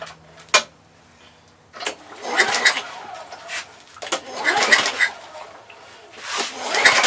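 A push mower's recoil starter is pulled three times, each pull about a second and a half of cord and engine turning over without firing. This is a spark check with a tester on the plug lead, which shows a blue spark: the ignition coil is good. There is a sharp click shortly before the first pull.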